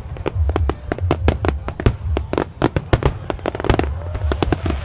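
Japanese starmine fireworks barrage: aerial shells bursting in quick succession, many sharp bangs a second over a continuous low rumble.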